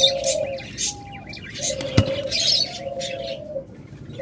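Doves cooing in long, low notes, several times over, amid the busy chirping of many small cage birds. A single sharp click about two seconds in.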